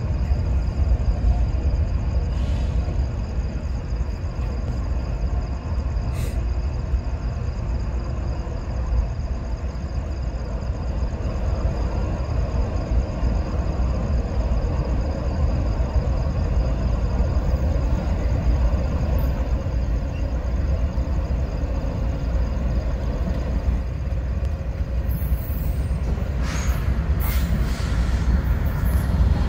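Double-stack container freight train rolling past, a steady low rumble of wheels on rail. A few sharp clicks come near the end, and the sound grows louder as locomotives approach on the nearer track.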